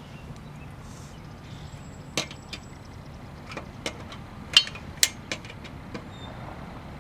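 A handful of sharp, irregular metal clinks from a lug wrench working the wheel nuts on a spare tyre, the loudest pair a little past the middle, over a steady background hiss.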